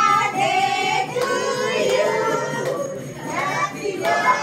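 Music: a song with singing over jingling percussion.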